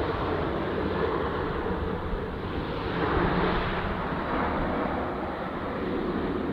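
Jet airliner's engines as it comes in to land: a steady, broad rumble that swells about three seconds in and eases off near the end.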